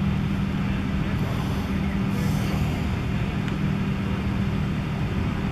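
Steady low machine hum with a constant drone over even background noise, and a brief faint hiss about two seconds in.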